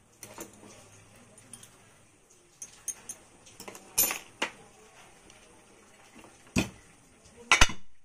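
Metal tools and fan parts clinking and knocking on a workbench: a series of sharp separate clacks, the loudest near the end as the DC ceiling fan's metal rotor housing is set down over the stator.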